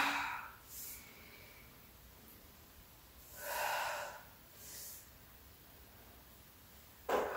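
A woman's heavy breathing during the Pilates saw exercise, exhaling into each twist. There is one strong breath out about halfway through, with shorter, softer breaths before it, after it and near the end.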